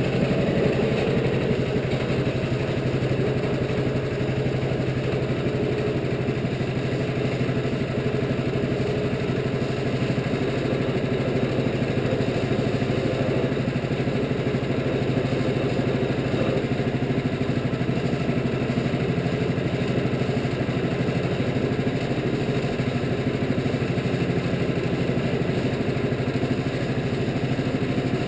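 Wood-Mizer LT15 bandsaw mill's gas engine running steadily at a constant speed as the sawhead travels along a cedar log.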